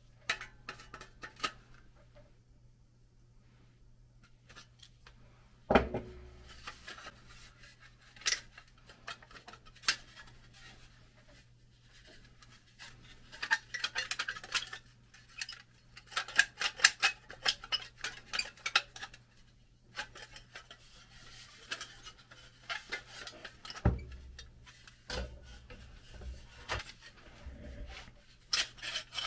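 Pressed-steel toy airplane parts being handled and worked apart by hand: light metal clinks and scrapes, with two stretches of quick rattling clicks and a couple of dull knocks.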